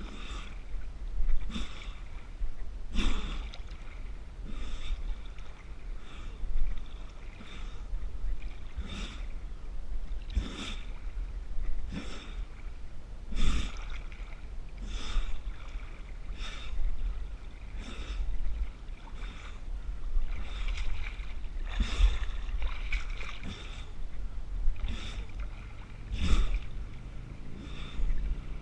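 A swimmer stroking through river water, a splash about every second and a half, with the swimmer's breathing between strokes over a steady low rumble.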